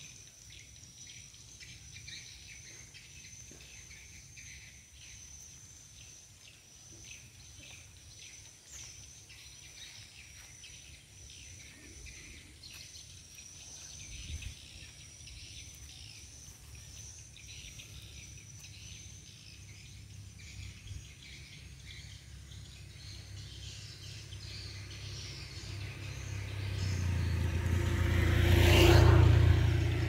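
Insects chirring steadily in a high, rapidly pulsing drone. Near the end a motor vehicle swells up close, is loudest about a second before the end, then fades.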